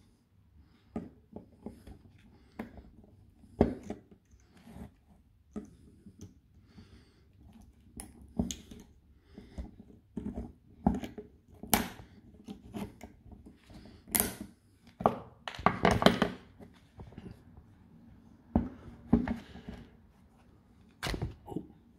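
Plastic cell holder and metal cell strips of a DeWalt Flexvolt battery pack being pried apart with a screwdriver: irregular clicks, snaps and knocks, with a longer crackling scrape about three quarters of the way through.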